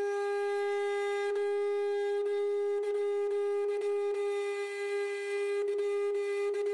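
A single held horn-like tone at one unchanging pitch, with a few faint clicks over it.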